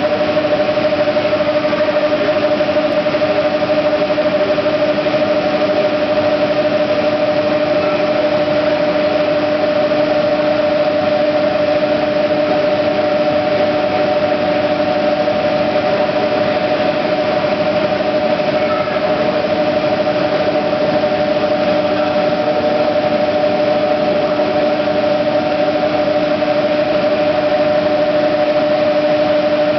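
Hydroelectric turbine-generator sets running steadily: a loud, unchanging machine hum with two constant droning tones, one an octave above the other, over a dense rushing noise.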